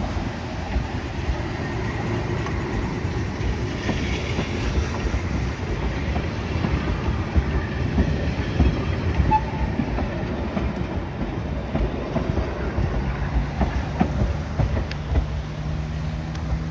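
Vintage three-car ATM interurban tram set pulling out and running past at close range. Its wheels clatter over the rail joints and points above a steady rumble as it moves away.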